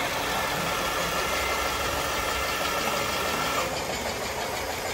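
RC model machinery running with a steady engine-like idling sound. A thin, high steady whine over it stops about three and a half seconds in.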